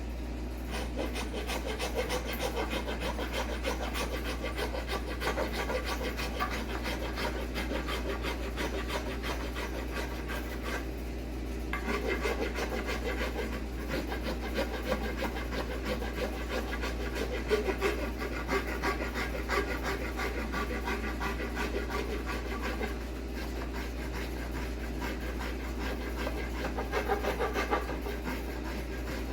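A hand tool working apple wood: a steady rubbing, rasping scrape made of many quick strokes, broken by short pauses about a third of the way in and again past two-thirds.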